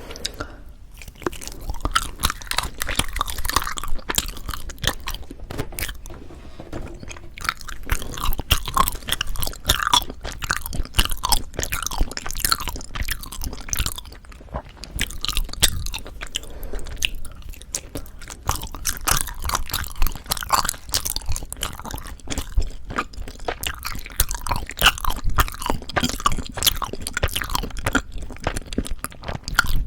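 Close-miked chewing of soft, sticky Korean rice cake (tteok): wet, sticky mouth sounds and smacks, irregular and continuous.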